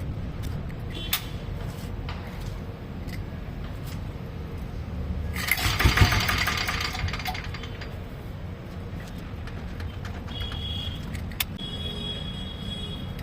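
Freshly rebuilt single-cylinder diesel engine of a Royal Enfield diesel Bullet running on its first start, with a louder surge about five to seven seconds in. The running sounds fine to the owner apart from a slight injector noise.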